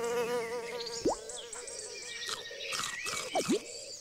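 Cartoon sound effects for an animated Noggin logo ident: a wobbling tone with a quick rising whoop about a second in and more swoops near the end, with clicks and pops in between.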